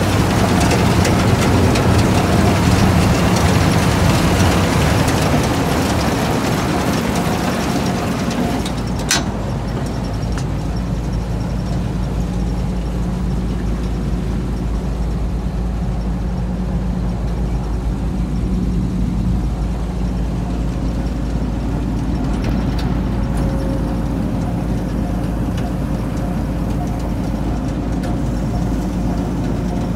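John Deere 6600 combine's engine idling with a steady hum. A sharp click comes about nine seconds in, after which the engine sounds quieter.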